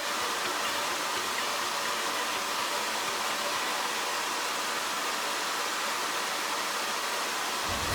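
Steady hiss of rushing air, even and unchanging, with no pitch or rhythm; music comes back in near the end.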